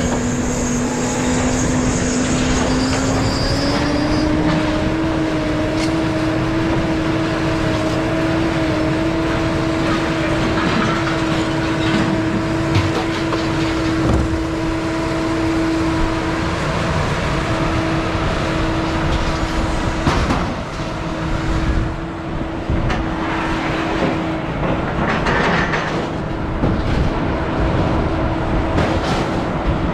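Motor vehicle running on the move: a steady engine hum that rises in pitch about three seconds in and then holds level, over constant road noise.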